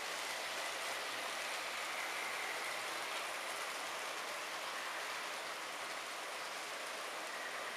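HO-scale model trains running on the layout's track: a steady rolling hiss of small metal wheels on rail, with a faint high motor whine.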